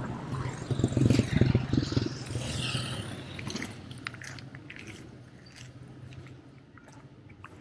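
A motorcycle passing close by, its engine rattling and loudest a second or two in, then fading away. Scattered light ticks follow.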